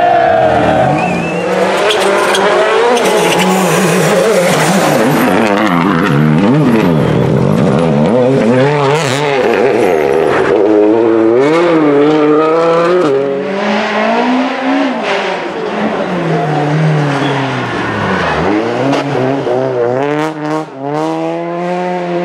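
Rally cars, among them a Renault Clio and a Hyundai i20 WRC, driven hard through hairpins. Their engines rev up and drop off again and again through the corners and gear changes, with some tyre squeal.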